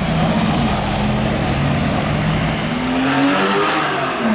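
Car engine running loudly and accelerating, its pitch rising about two seconds in, then falling back.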